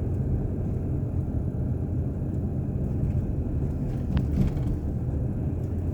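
Steady low rumble of road and engine noise inside a moving car's cabin, with one brief click about four seconds in.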